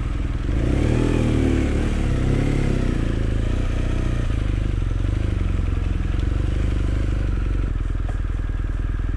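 Motorcycle engine running as the bike gets under way: it picks up in the first second, then runs steadily.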